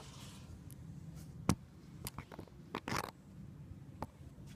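Short sharp clicks and scrapes of a plastic coolant cap and fittings being handled while draining a Peugeot 406's cooling system: one loud click about a second and a half in, a quick run of clicks and a scrape soon after, and one more near the end.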